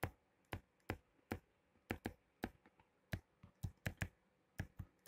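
Faint, sharp, irregular clicks of a computer mouse button, about three a second, pressed and released stroke by stroke while handwriting is drawn with an on-screen ink pen.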